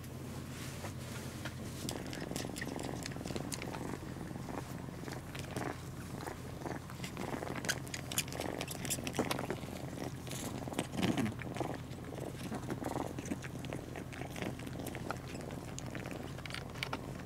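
Cats purring steadily while kittens suckle at a white male cat's belly and he licks them, with many small clicks from the suckling and licking over the purr.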